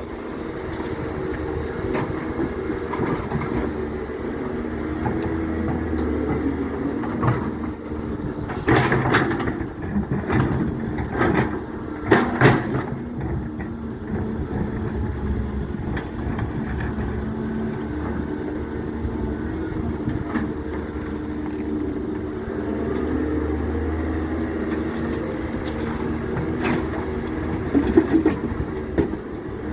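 Excavator's diesel engine running steadily, with a cluster of sharp clanks and knocks from the digging about a third of the way in and a few more near the end.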